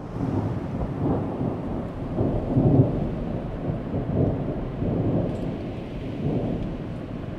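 A low rolling rumble with a steady hiss above it, swelling and easing irregularly every second or so.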